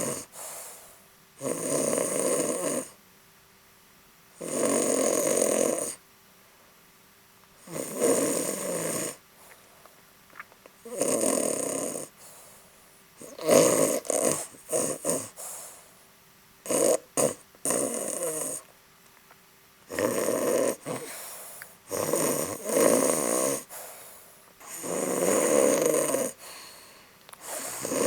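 Domestic cat snoring in its sleep: a snore roughly every three seconds, each lasting about a second, with a few near the middle broken up into several short pieces.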